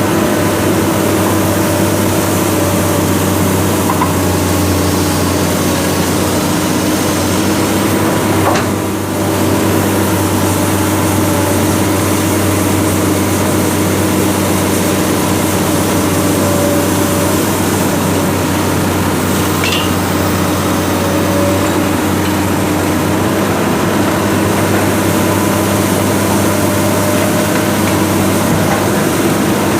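Heavy diesel engine running steadily at a constant low speed, with a single brief knock about nine seconds in.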